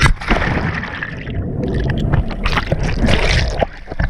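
A jumper plunging into the sea: a loud splash right at the microphone, then churning, gurgling water for about three and a half seconds, easing near the end.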